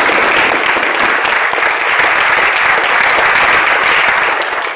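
Audience applauding steadily, easing slightly near the end.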